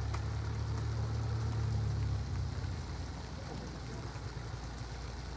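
Single-engine Cessna light aircraft taxiing, its piston engine and propeller running at low power as a steady low drone that is louder for the first two seconds and then eases slightly.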